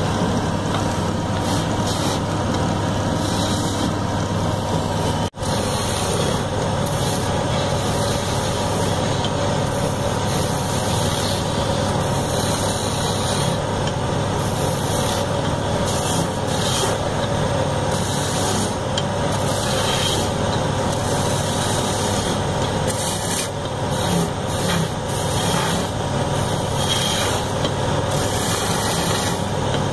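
Wood lathe motor running with a steady hum while a hand-held turning chisel cuts into the spinning wooden sofa-leg blank, the cutting giving an uneven scraping over the hum. The sound drops out for a split second about five seconds in.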